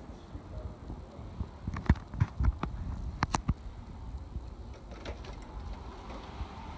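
Front door with a metal security screen being unlatched and opened: a quick cluster of sharp latch and handle clicks and knocks about two to three and a half seconds in.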